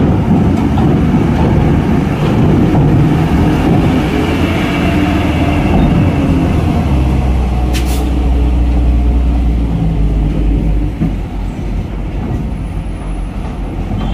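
Diesel engine of a loaded tandem-axle cargo truck working hard as it pulls up the steel loading ramp onto a ferry, with a deep rumble strongest from about seven to ten seconds in and a short sharp noise about eight seconds in.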